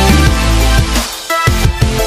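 Background music with a strong bass line.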